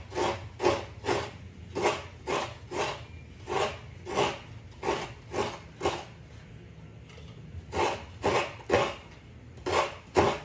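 Half a coconut scraped by hand against the serrated blade of a kudkuran grater stool, grating out the white meat in short rasping strokes, about two a second, with a pause of about a second and a half midway.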